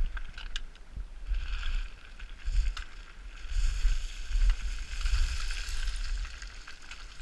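Boots crunching and sliding through loose scree, in hissing surges a second or so long, with stones clattering and a few sharp clicks of trekking-pole tips on rock. Low rumbling on the microphone underneath.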